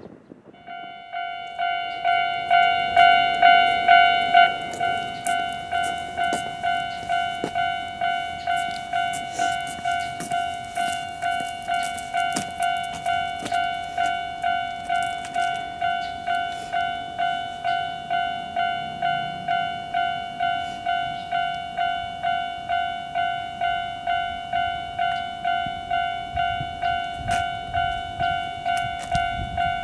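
Japanese level-crossing warning alarm sounding its kan-kan clang, a ringing tone repeated in an even rhythm. It starts about half a second in and is loudest for the first few seconds.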